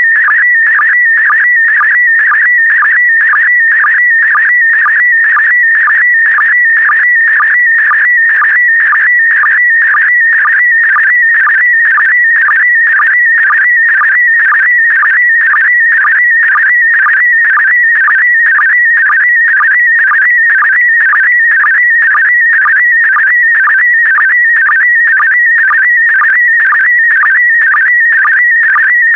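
PD120 slow-scan TV image transmission: a continuous warbling electronic tone around 2 kHz that shifts quickly as it encodes the picture, broken by a short lower sync blip about twice a second.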